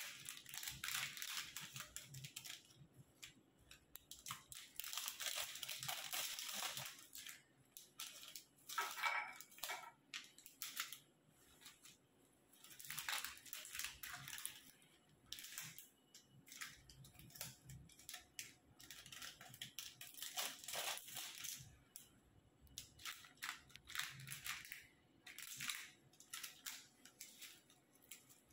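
Plastic Mini Oreo snack packets crinkling and tearing as they are handled and opened, in irregular bursts with short pauses between.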